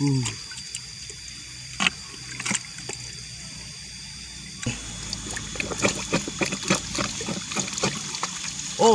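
Shallow water trickling and splashing, with a few sharp splashes or knocks early on that turn into a busy run of small splashes from about halfway through.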